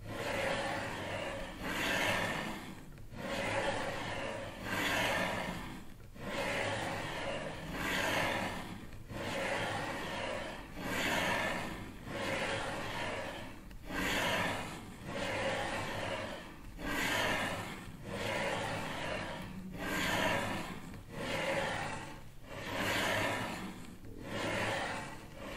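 A hissing, breath-like noise that swells and fades in a steady rhythm, about once every second and a half.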